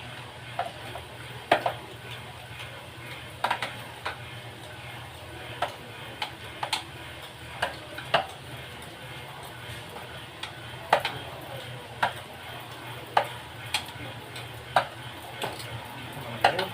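Irregular sharp metallic clinks and taps, about a dozen scattered through, as tools and metal parts are handled during split-type aircon cleaning, over a steady low hum.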